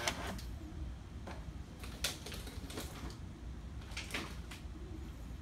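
Several sharp mechanical clicks, irregularly spaced about a second apart, from a smart lever lock on a wooden test board as it is triggered from a phone app.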